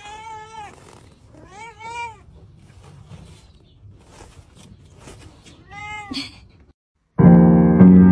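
A cat meowing three times, each a drawn-out call. After a moment of silence near the end, loud piano music starts.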